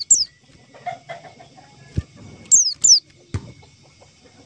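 White-eye (pleci) calls: short, sharp high notes that sweep down in pitch, one just at the start and a quick pair about two and a half seconds in, with two dull thumps between them.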